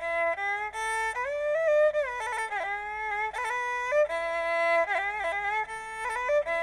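Traditional Khmer wedding music led by a bowed fiddle playing a single melody with sliding, bending notes.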